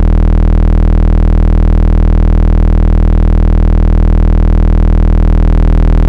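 Car-audio subwoofers, Skar Audio subs, playing a single steady low bass test tone at very high level. It is heard inside the car as one unchanging low note with many overtones stacked above it.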